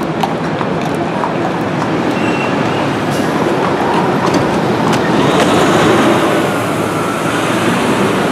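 Busy city street noise: traffic passing in a steady rumble, with a few light clicks and knocks over it.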